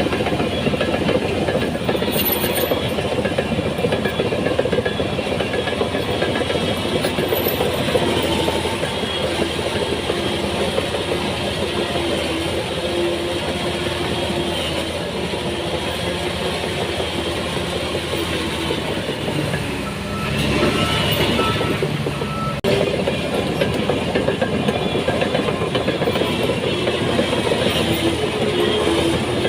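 Crawler bulldozer working: its diesel engine runs under load while the steel tracks clank and rattle. The sound swells about two-thirds of the way through, then changes abruptly.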